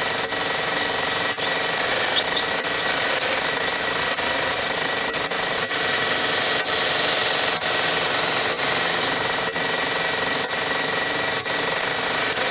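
Belt grinder running and sanding brown mallee hardwood knife handle scales: a steady machine noise with a whine and brief regular dips about once a second.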